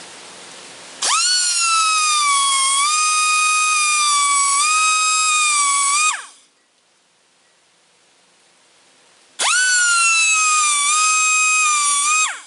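High-pitched whine of a small power tool, running twice, for about five seconds and then about three, dipping slightly in pitch under load and dropping as it stops.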